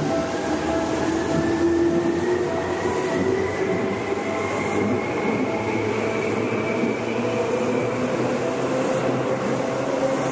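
Electric commuter train pulling out of the station: its traction motors give a whine that rises slowly in pitch as it accelerates, over the rumble of wheels on the rails and a steady tone.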